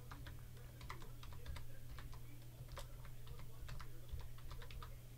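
Typing on a computer keyboard: an uneven run of key clicks as a word is typed in, over a steady low hum.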